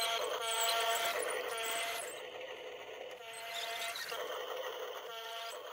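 Electric gear motors of a toy RC excavator whining in short repeated runs, about one a second, as the bucket is worked.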